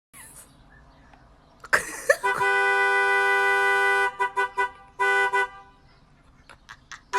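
Car horn honking, pressed by a dog waiting inside the car: a steady blast of nearly two seconds, then three quick taps and another short blast. A few brief sudden sounds come just before the first blast.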